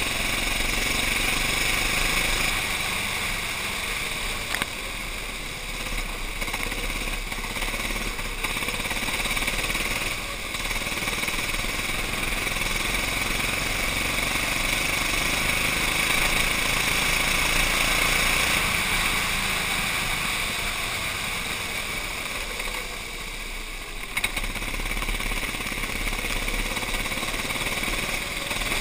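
Go-kart engine running hard under full throttle, heard from the driver's seat. It eases off briefly for corners about four and a half, ten and twenty-three seconds in, then picks up again.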